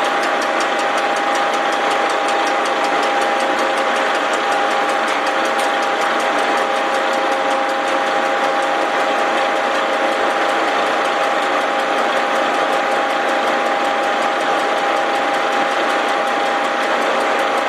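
Milling machine spindle running with a face-milling cutter taking a very light skim cut across a Willys L-134 cast-iron engine block deck: a steady whirring hum with an even, rapid ticking as the cutter touches the surface. The ticking comes from a first pass meant to find the high spots on a deck that is badly out of flat.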